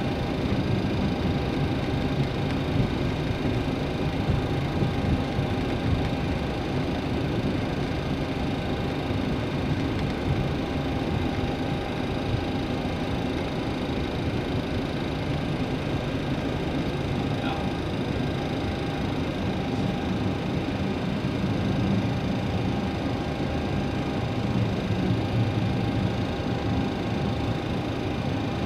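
Steady cockpit noise of a Boeing 737 taxiing after landing: engine and air-conditioning hum over a low rumble, with a few faint steady tones.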